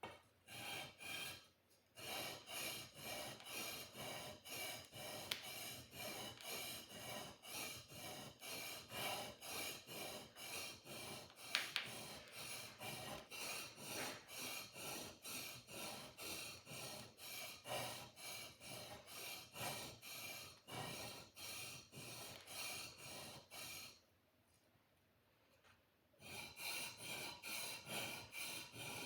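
A sword blade being sharpened: rhythmic rasping strokes of the sharpener along the steel, about two a second, with a pause of about two seconds near the end before the strokes resume.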